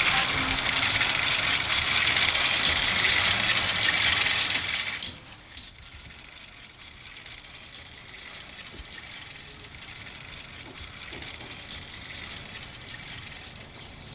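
Several hand-turned wooden spinning wheels whirring and rattling as wool is spun, loud for about five seconds before cutting off abruptly to quiet outdoor background.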